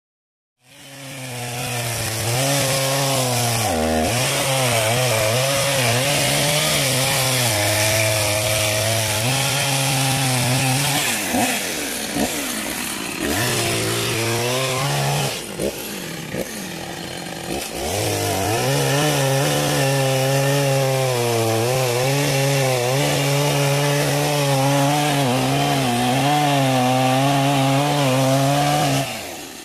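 Chainsaw running and cutting into a wooden log, its engine pitch wavering under load. It starts about half a second in, eases off twice in the middle and stops just before the end.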